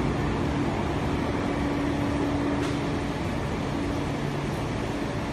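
Frozen french fries production line machinery running: a steady mechanical hum and rush, with a low droning tone that fades in and out.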